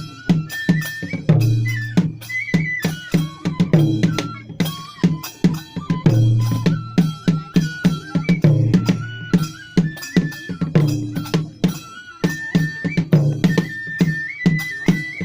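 Kagura festival music: a Japanese bamboo flute plays a stepping melody over steady, rhythmic taiko drumming and sharp metallic percussion strikes.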